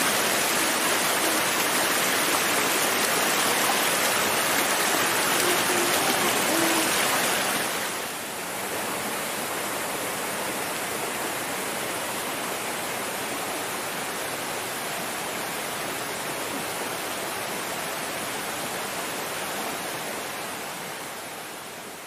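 Rushing water of a rocky mountain stream below a small waterfall, a steady hiss. It drops to a lower level about eight seconds in and eases off slightly near the end.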